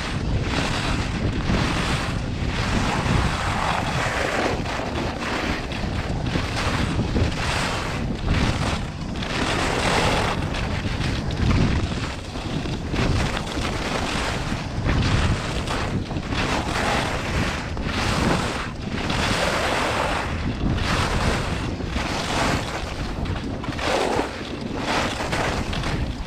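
Wind rushing over a helmet- or body-mounted action-camera microphone during a fast ski descent, with the skis' edges scraping on hard, icy piste in a swelling hiss at each turn, about every two to three seconds.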